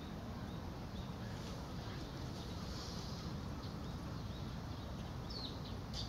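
A few faint, high bird chirps over a steady low background rumble, with one short falling call about five seconds in.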